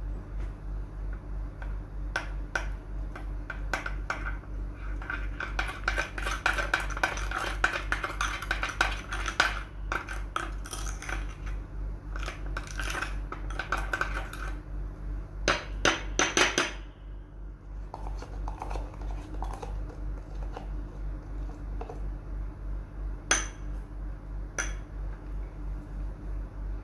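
A spoon or utensil clinking and scraping against a bowl in quick, irregular strokes, as when stirring and mixing slime. The strokes are thickest in the middle, and a steady low pulsing hum runs beneath them.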